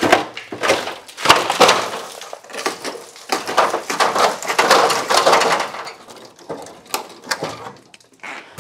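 Rusted front-end body parts of an old truck being wrenched off by hand: a dense, loud run of crunching, scraping and clattering, with rusty pieces knocking and falling. It eases off near the end.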